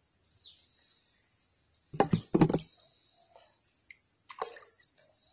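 Fish jumping out of a raised lift net and splashing into muddy water: two loud splashes about two seconds in and a smaller one near the end.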